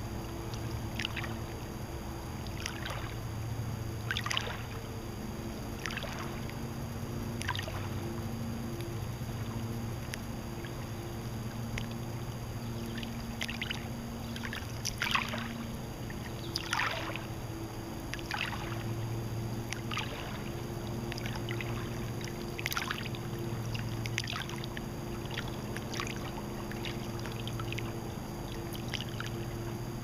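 Small waves lapping at the lake shore, irregular little splashes every second or two. A steady low hum runs underneath.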